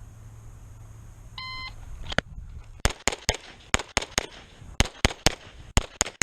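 Electronic shot-timer beep, then a Beretta 92 Elite LTT 9mm pistol firing about a dozen quick shots in strings of three, with short pauses between the strings as the shooter moves from target to target.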